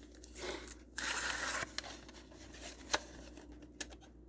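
Packaging being torn and peeled off a VHS tape case: two short rustling tears, then a few small clicks with one sharp click near three seconds.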